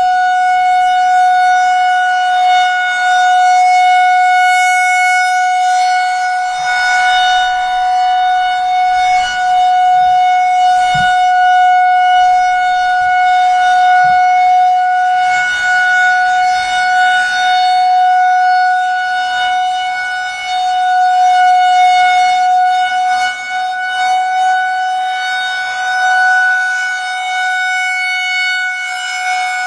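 Federal Signal 2001-130 rotating electromechanical outdoor warning siren sounding a steady Alert signal: one loud held tone, its loudness swelling and dipping a little as the siren head turns.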